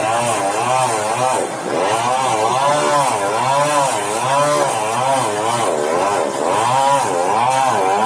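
Sawmill engine running, its pitch wavering up and down roughly once a second.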